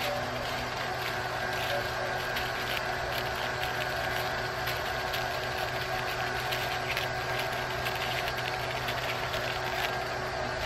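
A steady motor drone, like an engine idling, runs throughout. Over it come faint, irregular crinkles and snips as a Mylar emergency blanket is cut with scissors.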